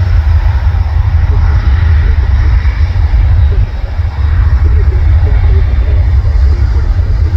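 Deep, steady rumble of jet engines from an airliner departing.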